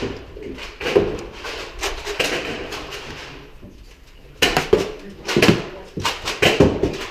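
Scattered sharp knocks and clatters in a room. They die down to a lull about four seconds in, then several come in quick succession.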